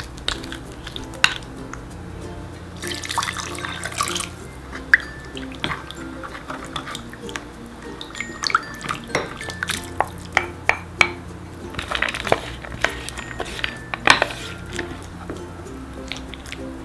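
Wooden spoon scraping and stirring seasoning paste into broth in a black earthenware pot, making wet sloshing and squelching sounds with scattered clicks and knocks against the pot, over light background music.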